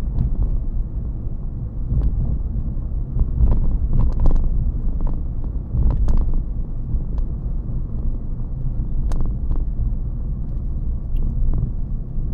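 Tyre and road rumble inside a Toyota Yaris GR Sport's cabin on a rough, potholed road, with scattered knocks and thumps as the 18-inch wheels on wide tyres and firm suspension hit the potholes.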